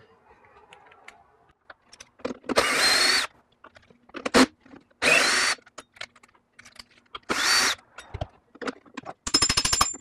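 Cordless Makita drill with a hex bit run in three short bursts, its motor whining, backing out the small grub screws and set screw of an electric unicycle's pedal hanger. Light clicks and clatter of tools and parts fall in between, and a fast run of clicks comes near the end.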